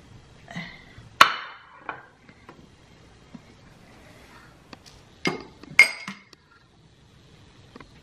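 A ceramic dinner plate clinking and knocking against a stone countertop as it is handled: several sharp clinks with a short ring, the loudest about a second in and twice more just after five seconds.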